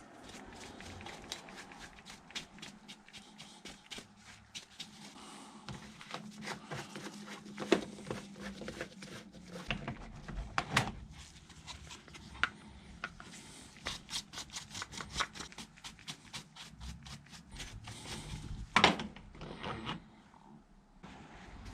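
Rapid scraping and brushing strokes as caked sawdust and oily debris are knocked off chainsaw parts by hand, with a few sharper knocks, the loudest a little before the end.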